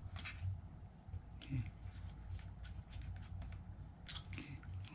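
Small screwdriver driving a tiny screw into a plastic drone remote-controller case: faint scattered clicks and scratchy ticks of the bit and screw, over a low steady hum.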